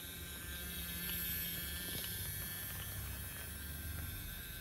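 BRIO Old Steam Engine's small battery motor whirring steadily as the toy train runs, its wheels rolling on plastic track, with a faint click about two seconds in.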